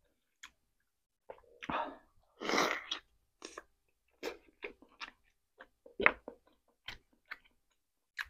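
Close-miked mouth sounds of a person eating rotisserie chicken and soup: wet lip smacks and sharp chewing clicks scattered throughout, with two longer breathy slurping sounds a couple of seconds in.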